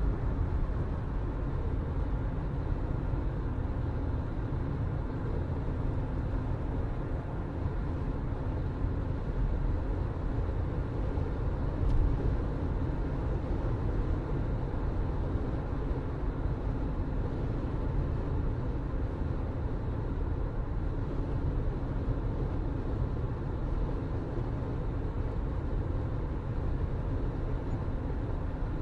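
Steady low rumble of a moving vehicle, even and unchanging throughout, with one brief click about halfway through.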